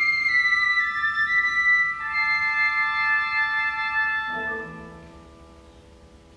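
Concert wind band playing a quiet passage: several high held notes overlap and shift. About four seconds in, softer lower notes enter and the music fades away.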